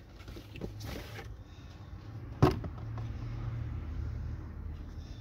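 A single sharp knock about two and a half seconds in, over a low steady hum, with a soft rustle shortly before.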